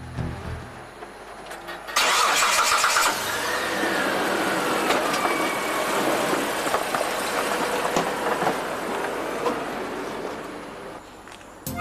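Mitsubishi Pajero SUV engine starting about two seconds in, then running as the vehicle pulls away, fading near the end.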